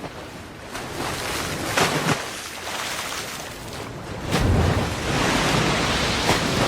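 Ocean surf washing, with a few sharp splashes of water; the rush grows louder a little past four seconds in.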